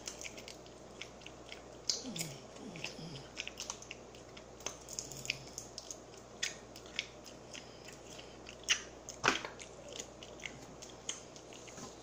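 Close-up eating of fried chicken: biting and chewing, heard as irregular short crunches and clicks, with one louder crack about nine seconds in.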